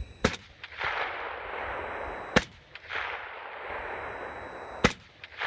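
Three rifle shots from a .308 Ruger SFAR semi-automatic, about two and a half seconds apart, each trailing off in a long echo.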